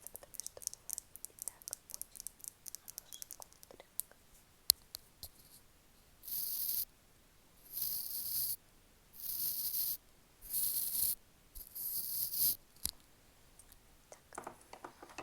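Close-miked ASMR trigger sounds from makeup props: rapid light tapping and clicking for about four seconds with one sharp click, then five hissing strokes of about a second each, evenly spaced.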